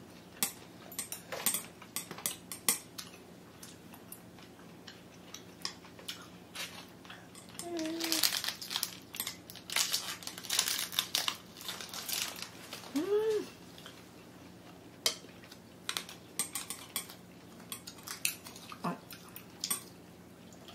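Metal chopsticks clicking and scraping against a serving tray and a small sauce bowl while eating steamed squid, in scattered light taps, with chewing sounds. Two brief short vocal sounds are heard, at about eight and thirteen seconds in.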